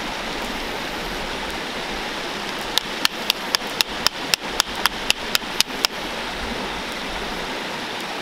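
Steady rush of a running creek, with a quick run of about a dozen sharp clicks, roughly four a second, starting about three seconds in: fence wire and a plastic insulator being worked onto a steel T-post.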